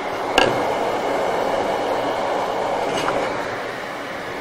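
Steady rushing machine noise from a woodworking router table setup with dust extraction running. A light wooden knock comes about half a second in, and a fainter click near three seconds, as the wooden blank is handled.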